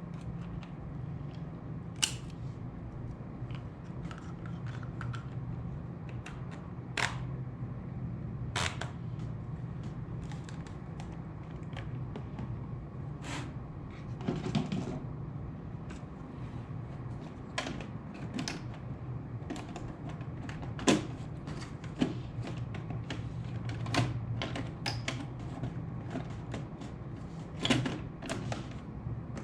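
Laptop case and small parts being handled: scattered sharp clicks and taps at irregular intervals, over a steady low hum.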